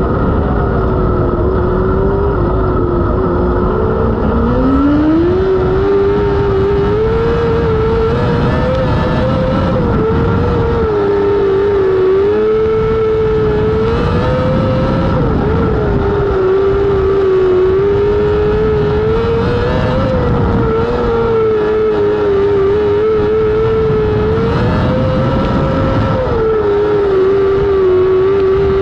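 Non-wing micro sprint car's 600cc motorcycle engine running hard on a dirt oval. The engine note climbs and dips every few seconds as the car laps.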